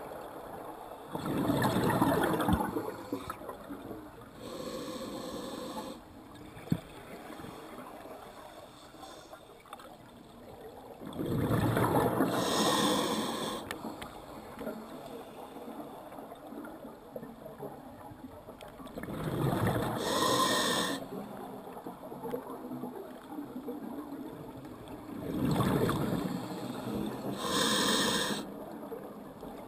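Scuba regulator breathing underwater: four long bursts of exhaled bubbles, several seconds apart, with quieter inhalation hiss from the regulator between them.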